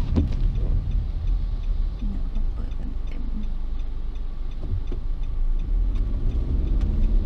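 A car heard from inside its cabin while driving: a steady low rumble of engine and road noise.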